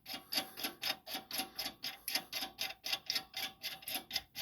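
Rapid, even metallic ticking, about five clicks a second, as nuts are spun down the threads of U-bolts by hand.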